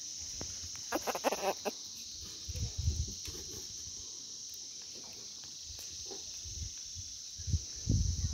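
Steady high-pitched insect drone, with a quick run of clucking calls about a second in and a few dull low thumps later, the loudest near the end.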